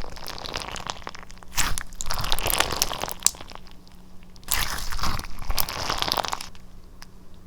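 Slime being squeezed and pressed by hand, giving dense crunching crackles in two bouts, the second starting about halfway through and fading near the end.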